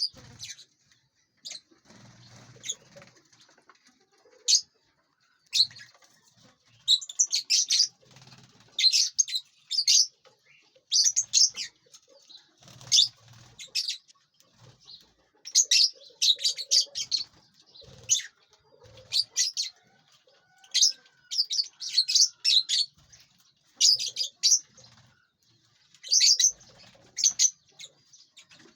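A flock of lovebirds chirping in clusters of short, shrill calls, with wings flapping as the birds move about the aviary.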